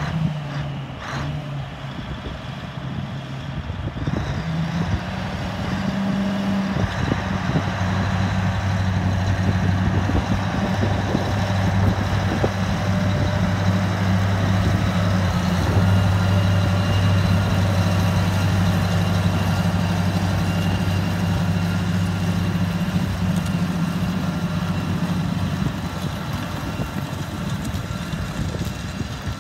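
John Deere 8850 tractor's V8 diesel engine running steadily under load while pulling a 10-furrow mouldboard plough. It grows louder as the tractor draws near, then fades near the end as it moves away.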